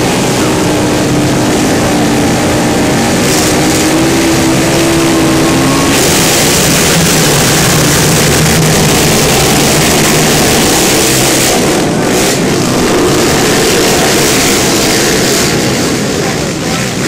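A pack of racing quad ATVs revving hard together, the engine pitch climbing, then a louder surge of engine noise about six seconds in as the pack accelerates and passes, easing off near the end.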